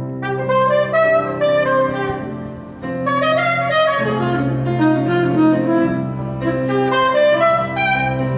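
Saxophone playing jazz phrases over a steady low held accompaniment, in two phrases with a brief break about a third of the way in.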